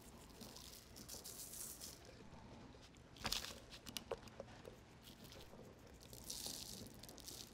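Faint sounds of dry rub being shaken onto a raw chicken: soft, hissing patter in two spells. Between them, about three to four seconds in, come a few light clicks and knocks from handling the bird on its wire rack.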